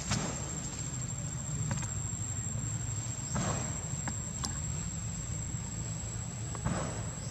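An insect's steady, high-pitched, unbroken drone over a low steady rumble, with three brief swishes: one at the start, one about three and a half seconds in and one near the end.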